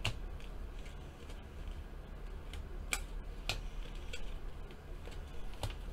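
Glossy chromium baseball cards being shuffled through by hand, giving a few sharp little clicks as the stiff cards snap and slide against each other, over a low steady hum.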